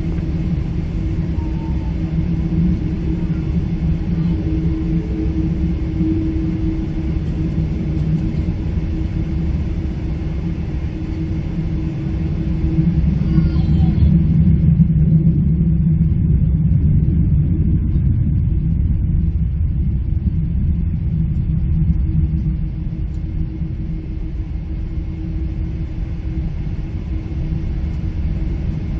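Steady cabin rumble of a Boeing 777-300 on the ground before takeoff, engines running, heard from the rearmost seat, with a constant low hum. It grows louder about thirteen seconds in, then eases slightly near the end.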